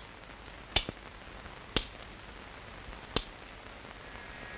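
Four sharp clicks about a second apart. Near the end a faint electric buzz starts, the force-field device switched on and running.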